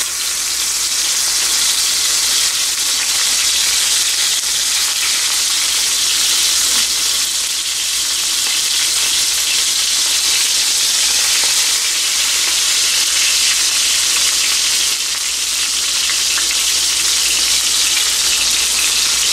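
Marinated fish pieces shallow-frying in hot oil in a pan over a low flame, giving a steady sizzle.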